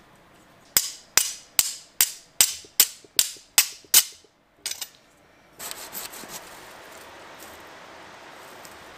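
A chunk of riverbed quartz struck repeatedly against the steel of a Silky Gomboy folding saw to throw sparks: sharp ringing clicks, about two and a half a second, nine in a row and then one more. Just past halfway a steady hiss of outdoor noise takes over.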